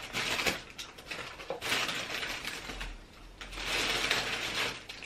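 Clear plastic bag of party blowers crinkling as gloved hands dig in and pull blowers out, in several bursts of rustling.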